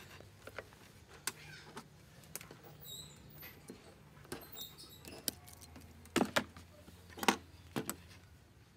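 Small clicks and taps of test leads and small parts being handled on a wooden workbench, with several sharper knocks close together about six to eight seconds in. A low steady hum runs underneath, and a few faint high chirps come around three seconds in.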